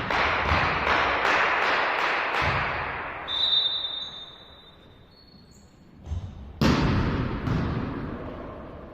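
Indoor volleyball play in a reverberant sports hall: ball strikes echoing through the hall for the first few seconds, then a referee's whistle held for about a second and a half. About six and a half seconds in, a sudden loud ball hit rings out and slowly dies away in the hall's echo.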